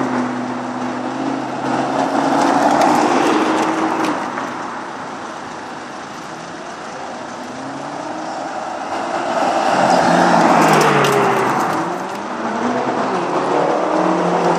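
Sports cars driving past one after another, engines revving as they go by, the pitch falling as each passes. The loudest pass comes about ten seconds in.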